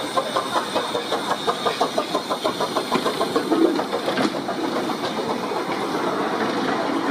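Small 15-inch-gauge 0-4-0T/T steam locomotive (Krauss-built No. 4 The Bug) chuffing as it moves off past the platform, with quick even exhaust beats about four a second. The beats blend into a steadier hiss and rumble after about four seconds.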